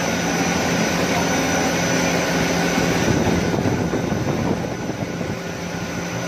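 Snack pellet extrusion line running: the extruder and its cooling fans make a steady machine noise with a constant low hum and a thin high whine over it.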